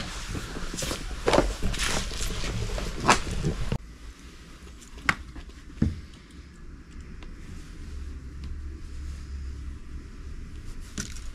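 Handling noises at a counter: crackly rustling of plastic packaging with several sharp clicks for the first few seconds, then quieter, scattered clicks as a baitcasting fishing reel is handled and threaded with line.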